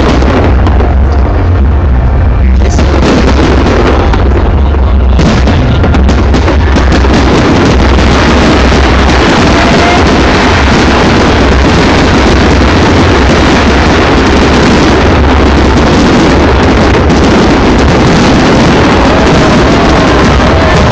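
New Year's fireworks going off in a rapid, unbroken stream of bangs and crackles with a heavy low rumble, loud enough to overload the recording. The barrage grows denser about five seconds in.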